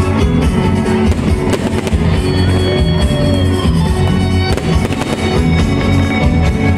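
Fireworks crackling and popping over loud music.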